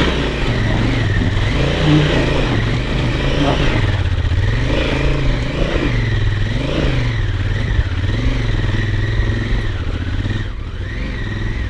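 Honda Africa Twin's parallel-twin engine revving up and down over and over under load on a steep, rocky trail climb, its pitch rising and falling about every second.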